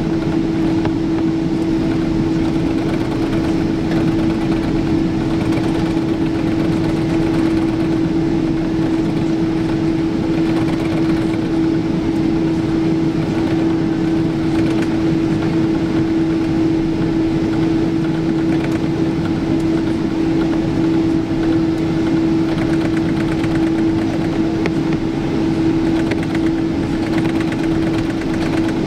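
Cabin noise of a Boeing 777-200ER taxiing under its twin jet engines at low power: a steady hum with one strong, unchanging tone over a constant rush.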